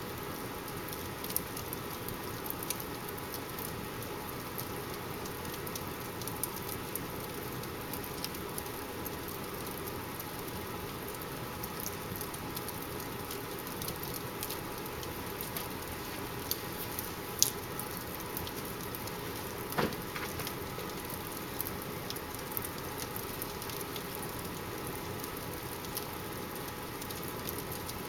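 Wood fire in a fireplace crackling: a steady hiss with frequent small snaps and pops, and two louder pops about two-thirds of the way through.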